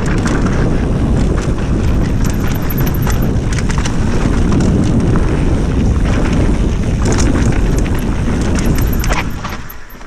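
Mountain bike descending a dirt forest singletrack at speed: wind buffeting the camera's microphone and tyres rolling over earth, with frequent sharp rattles and clacks from the bike over roots and rocks. The noise drops away near the end as the bike slows.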